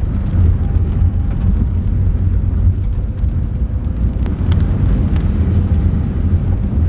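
Inside a moving car: the steady low rumble of the engine and tyres on the road, picked up by a phone's microphone, with a few faint clicks about four to five seconds in.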